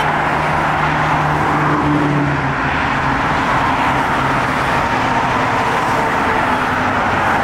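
Cars passing on a highway, a steady mix of tyre and engine noise. A low engine hum stands out for the first two and a half seconds and then fades into the traffic.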